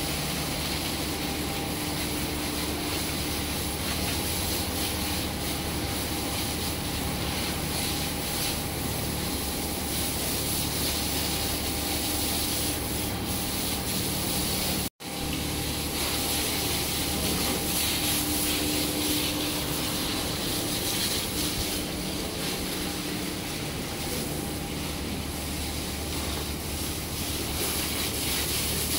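Water from a hose spraying onto a bull's hide and splashing on the wet concrete floor: a steady hiss and splatter, with a steady hum underneath. The sound drops out for a moment about halfway through.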